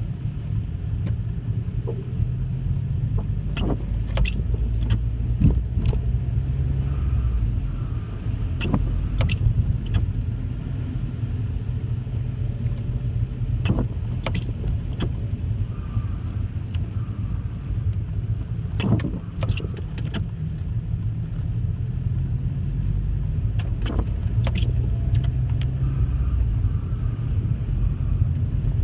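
Car driving: a steady low rumble of engine and road noise, with scattered sharp clicks and rattles.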